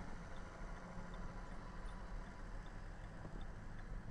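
Steady low hum of a car's interior picked up by a dash camera, with a faint, regular high tick a little more than once a second.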